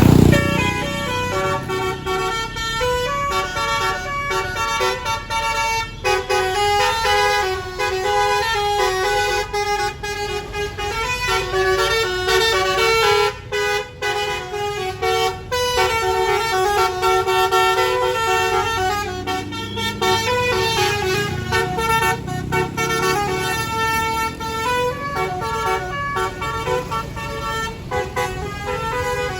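Bus 'telolet basuri' multi-tone air horn playing a long melody, note after note, with a bus engine rumbling underneath. The rumble is loudest right at the start.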